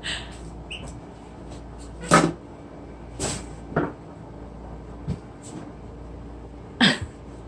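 A handful of sharp, separate clacks and knocks of hard objects being handled, the loudest about two seconds in and near the end.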